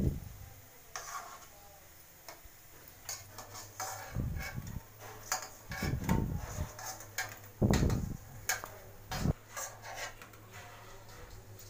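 A metal spoon clinking and scraping against a kadhai and a steel plate as fried kofte are lifted out of the oil and set down. Many short clicks, with several dull thumps.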